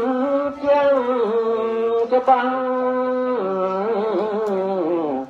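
A man's voice chanting a Buddhist chant through a microphone in long held notes, the pitch stepping down to a lower, wavering tone about three and a half seconds in.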